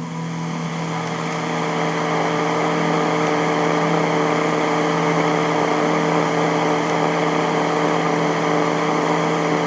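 A steady, engine-like mechanical drone with a hiss that builds over the first few seconds and then holds.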